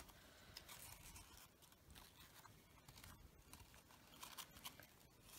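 Near silence, with faint rustling and small clicks from hands handling fabric rose parts and leaves.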